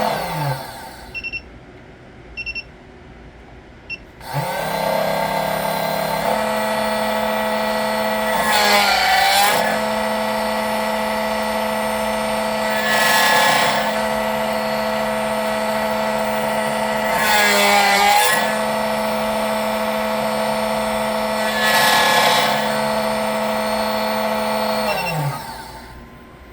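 SEC-9 key-cutting machine cutting a Tibbe key: its cutter motor's steady whine stops about half a second in, two short beeps sound, then the motor spins up again around four seconds in and runs on, growing louder four times as the cutter mills the cuts, before winding down near the end.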